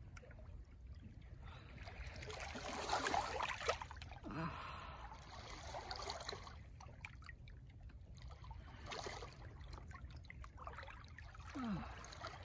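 Small waves lapping and washing among shoreline rocks in shallow water, coming in several swells, the loudest about three seconds in, over a low steady rumble.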